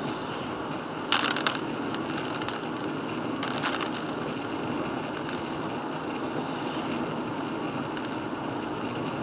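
Steady car-cabin noise while driving on a wet road: tyres hissing on the wet pavement under the engine's running. Two short bursts of clicking or rattling break in, about a second in and again a couple of seconds later.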